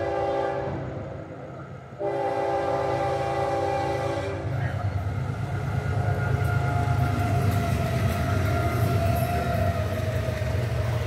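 Florida East Coast Railway freight locomotive's air horn: the end of one blast, then a second blast about two seconds in, held for a couple of seconds, sounding for the grade crossing. After that comes the low diesel engine rumble and the rolling rush and clatter of the intermodal train passing close by.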